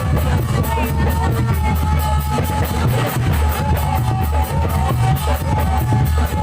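Loud music with drums keeping a fast, steady beat and a held melody note running over it.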